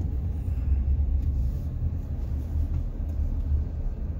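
Wind buffeting the microphone: a loud, uneven low rumble with no other clear sound.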